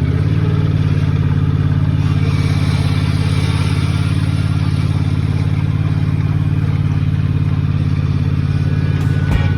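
A small vehicle's engine running steadily at close range, a constant low drone that holds at one speed.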